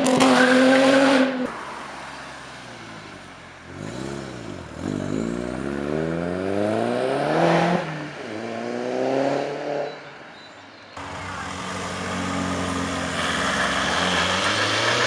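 Modified car engines accelerating away, the revs climbing steeply, dropping at a gear change about eight seconds in, then climbing again. Near the end another engine holds steady revs.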